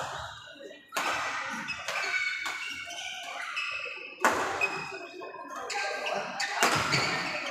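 Badminton doubles rally: rackets striking the shuttlecock in sharp cracks a few seconds apart that ring on in the hall, with short squeaks of players' shoes on the wooden court floor between the hits.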